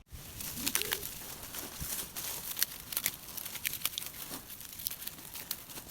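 Irregular rustling and crackling: many small clicks over a steady hiss.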